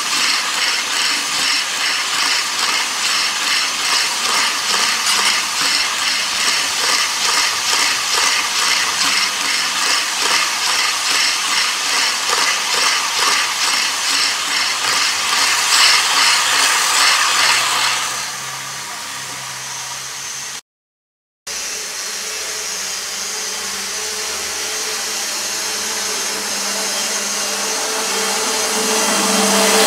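HO scale model double-stack intermodal freight train running fast past the microphone, its wheels clattering in a steady rhythm on the track. The clatter falls away about 18 seconds in; after a brief dropout a steadier running hum of the model train grows louder toward the end.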